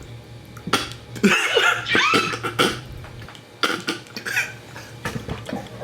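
A person making several short, forced sneeze- and cough-like outbursts: a staged sneeze.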